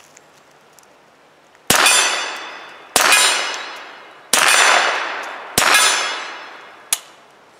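Four .22 LR rifle shots at a steel target, about 1.3 seconds apart. Each shot is followed by the steel plate clanging and ringing as it fades. A shorter, sharp crack comes near the end.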